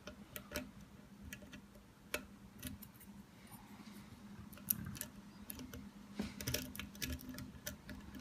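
Irregular small clicks and ticks of a hook pick working the spool pins of a Burg Wächter Profi 116/40 padlock cylinder under tension, as in single-pin picking. The clicks come faster about six seconds in.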